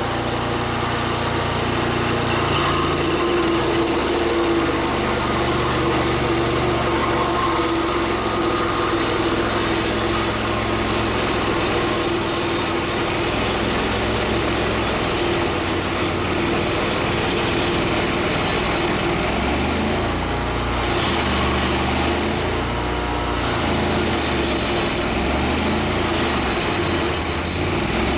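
A small engine running steadily and continuously, with its low rumble rising and falling in the later part.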